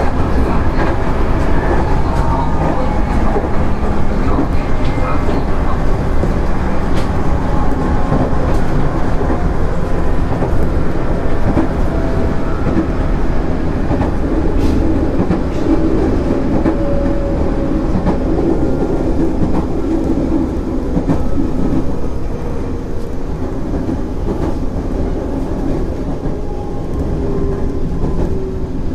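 Running noise of a JR 211 series 5000 electric train: a steady rumble of wheels on rail with a motor and gear whine that slowly falls in pitch as the train slows, and a few faint clicks.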